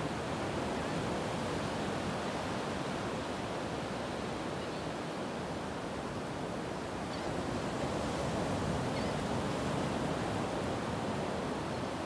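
Ocean surf washing onto a beach: a steady rush of small breaking waves, swelling slightly about two-thirds of the way through.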